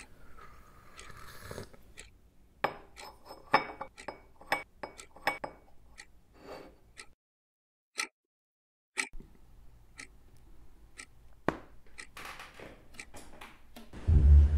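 Small hard objects being handled on a desk: a run of light clicks, taps and clinks, with a silent gap in the middle. Music comes in at the very end.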